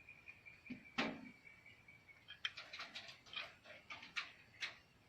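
Spotted doves moving about in a wire cage: a sharp knock about a second in, then a run of light, irregular taps and clicks. A faint steady high tone runs through the first two seconds.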